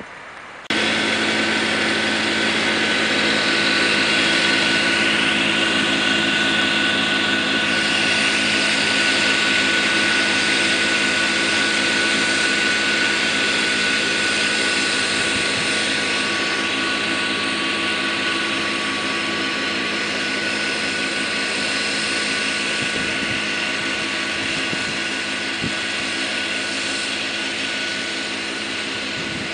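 Kubota B3030 compact tractor's three-cylinder diesel running steadily at working speed, driving a front-mounted PTO snowblower that is throwing snow, with a steady high whine over the engine. The sound starts abruptly about a second in.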